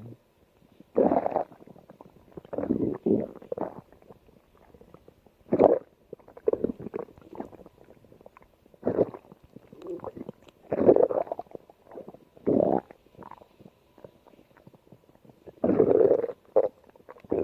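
Stomach growling: a series of irregular gurgling rumbles, each under a second, coming every second or two with quieter gaps between. The loudest come about eleven and sixteen seconds in.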